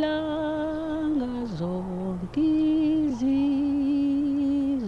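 A woman singing slowly, holding long notes with vibrato in two phrases that each step down in pitch, with a short breath between them.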